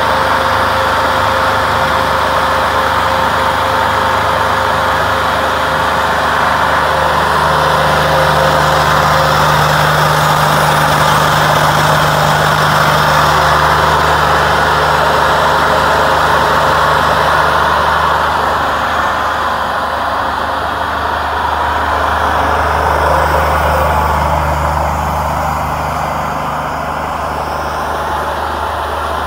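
Wood-Mizer LT40 band sawmill running: its engine runs steadily under load while the band blade cuts lengthwise through a walnut log. The cutting noise eases off about two-thirds of the way through and again near the end as the cut nears the end of the log.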